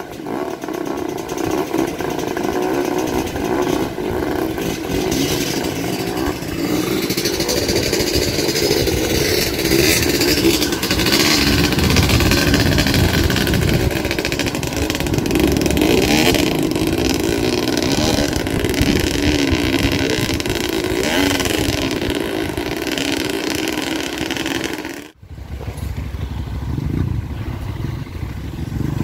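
Kawasaki KMX125 two-stroke single-cylinder dirt bike engine running steadily at moderate revs while riding a trail, breaking off for an instant near the end.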